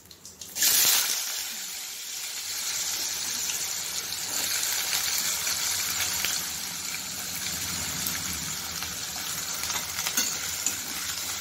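Diced potatoes dropped into hot oil tempered with cumin seeds in a steel wok: a sudden loud sizzle about half a second in that settles into a steady frying sizzle, stirred now and then with a metal spatula.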